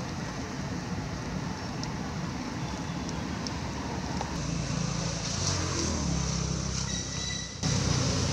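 Steady outdoor background noise with a motor vehicle's engine running, its low hum growing louder from about halfway, cut off abruptly near the end.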